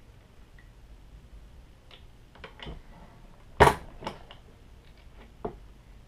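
Hornady single-stage reloading press cycled to seat and crimp a bullet in a .44 Magnum case: a few light clicks, then one sharp clack about three and a half seconds in as the ram runs up into the seating die, followed by a few smaller clicks as the loaded round is taken out of the shell holder.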